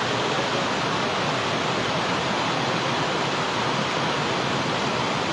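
Steady rush of floodwater from the Kushiyara river surging through a breach in its embankment, a strong fast current churning without a break.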